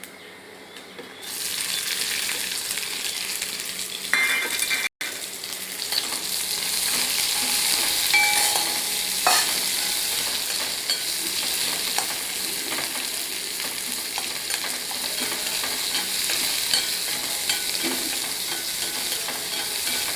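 Chopped onions frying in hot oil in a kadai, sizzling steadily with light stirring and scraping. The sizzle sets in about a second and a half in.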